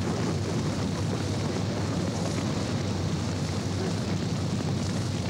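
Lava flow burning through trees and brush: a steady, dense rushing noise with a deep rumble underneath.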